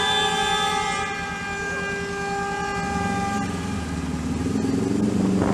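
A vehicle horn held in one long, steady blare, which stops about three and a half seconds in. Meanwhile a motorcycle engine revs up as the bike pulls away.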